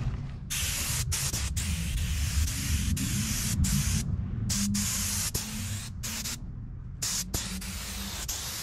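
Black Widow air spray gun hissing as it sprays single-stage urethane paint onto a boat hull. The trigger is let off several times, cutting the hiss briefly, with longer breaks about four seconds in and again around six and a half seconds.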